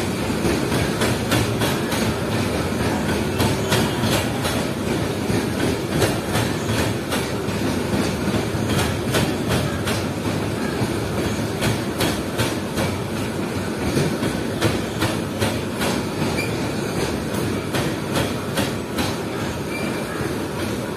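Freight train of hopper wagons rolling past close by: a steady rumble of wheels on rail with many sharp clicks as the wheels cross the rail joints.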